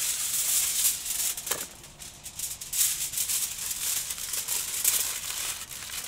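Aluminium foil crinkling and rustling in the hands as a potato is wrapped in it, in irregular crackles with a brief lull about two seconds in.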